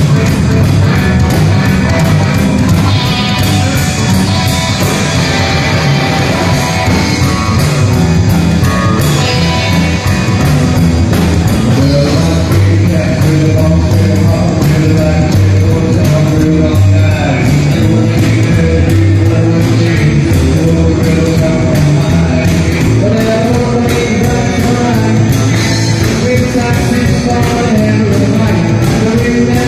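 Live rock 'n' roll band playing: upright double bass, electric guitars and drum kit keeping a steady beat, with a man singing.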